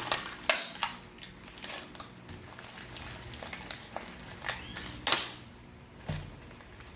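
Scattered light clicks and crinkles, close by, with one sharper click about five seconds in and a short dull thump soon after.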